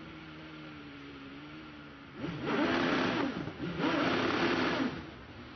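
Single-seater hillclimb race car's 4-litre Judd engine idling, then revved hard twice, each rev lasting about a second with the pitch rising and falling, before it drops back to idle.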